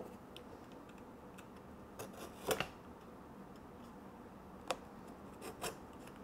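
Fingers picking at and peeling a paper seal sticker off a cardboard box: faint scattered ticks and short scrapes, the loudest about two and a half seconds in.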